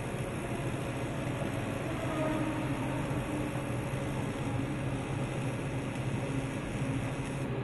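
TIG welding arc burning steadily, a constant low hum with an even hiss over it.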